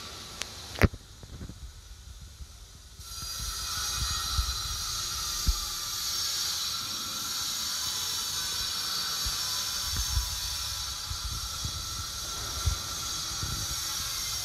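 Steady hiss that drops away for a couple of seconds near the start, then returns. A sharp click comes just under a second in, and a few dull low bumps follow through the rest, typical of a handheld phone being moved.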